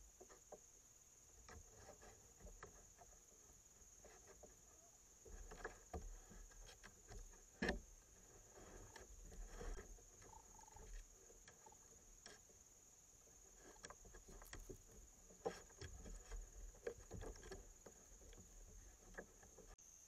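Raccoons dabbling at a shallow water tub: scattered small splashes, taps and knocks from their paws and muzzles against the water and the rim, over a steady high insect drone.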